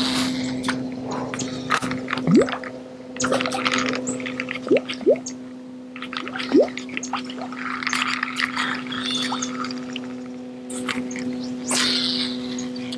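A small Rebel Pop-R P50 popper worked fast across the surface, making short rising bloops and splashy chugs, four of them loudest in the first half. A steady electric hum from the bow trolling motor runs underneath.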